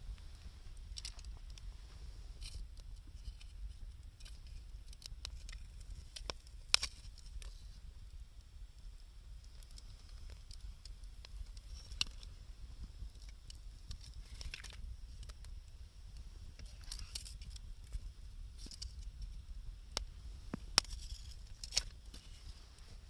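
Wood fire of scrap 2×4 lumber and scavenged wood crackling, with irregular sharp pops and a few louder snaps scattered throughout.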